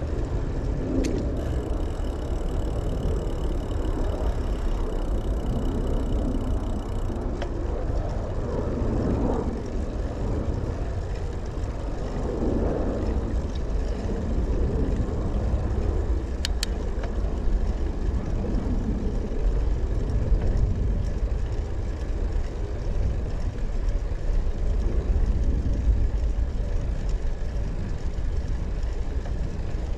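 Steady low rumble of wind on the microphone and tyre noise from a bicycle in motion, with a couple of faint clicks.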